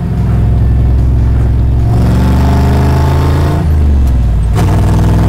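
Chevrolet ZZ427 big-block V8 pulling hard in third gear with its exhaust cutouts open, the exhaust suddenly much louder and the engine note climbing. It dips briefly about four seconds in, then picks up again.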